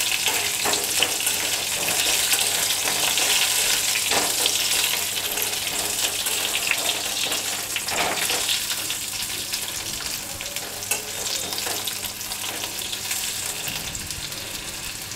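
Whole topa kul (sour Indian jujubes) sizzling in hot mustard oil with black mustard seeds in a metal kadai, stirred with a metal spatula that scrapes the pan now and then. The sizzle gets a little quieter toward the end.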